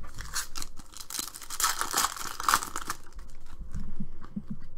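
Foil wrapper of a basketball trading-card pack being torn open, a rasping rip lasting about three seconds. It is followed by softer handling sounds as the fresh stack of cards is pulled out and flipped through.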